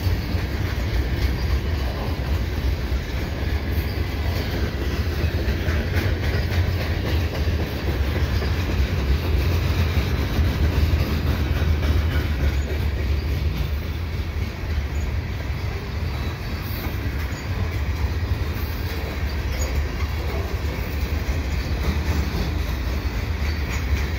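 Freight cars of a slow-moving train rolling past, a steady rumble and clatter of steel wheels on the rails.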